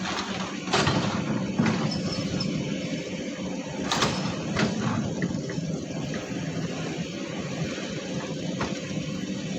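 Heavy diesel earthmoving machinery running steadily at a sand quarry, with several sharp knocks and clanks; the loudest comes about four seconds in.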